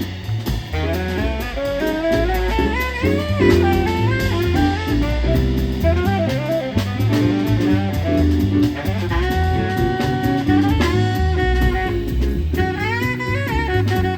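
Jazz quartet playing live: saxophone in quick melodic runs with one held note about two-thirds of the way in, over bass, drum kit and keyboard.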